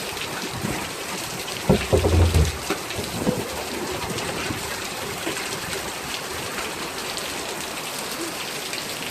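Steady rain falling and pattering on surfaces, with a brief low rumble about two seconds in.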